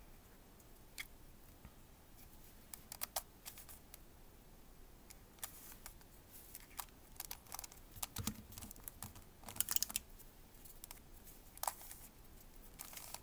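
Plastic Redi Barrel twisty puzzle being turned by hand: light, irregular clicks and clacks of its pieces as the layers are twisted, in quick clusters with short pauses between.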